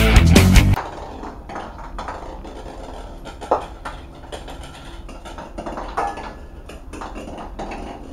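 Rock music that cuts off under a second in, then light clicks and taps of a fishing rod and reel being handled, the sharpest about three and a half and six seconds in, over a steady low hum.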